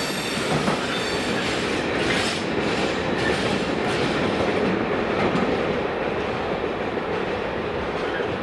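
Covered steel-coil wagons of a freight train rolling past, their wheels clattering over rail joints and pointwork, with a thin wheel squeal dying away in the first second.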